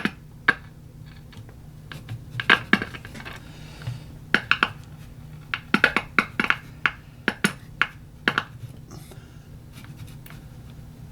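Glass vacuum tubes clinking and clicking against each other and the radio chassis as a 12AV6 tube is swapped, a dozen or so irregular sharp clinks over a low steady hum.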